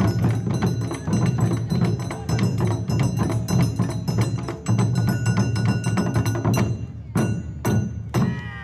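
Japanese festival taiko drums beaten together in a fast, dense rhythm, with a high ringing over the beat. Near the end the rhythm breaks into a few separate strokes, then stops.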